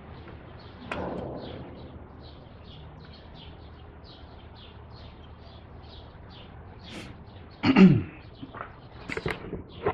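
A bird chirps steadily in the background, two to three short chirps a second. About a second in, the plastic wiring connector comes off the engine coolant temperature sensor with a click. Near the end there is a louder short sound that falls in pitch, then several light clicks.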